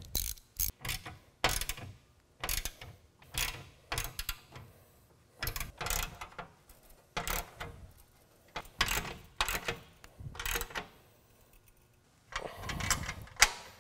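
Ratchet wrench clicking in short strokes, about one burst a second, as nuts are tightened down on bolts, with a longer run of ratcheting near the end.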